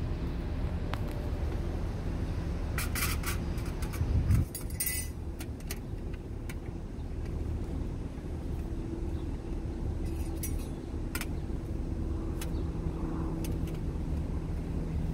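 A car engine running steadily with a low hum. Scattered light clicks and a louder knock about four seconds in come from the plate and bracket being handled.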